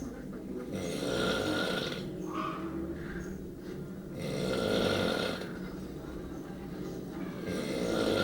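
Two people snoring side by side in sleep: three loud snores about three and a half seconds apart, with softer snuffling breaths between them.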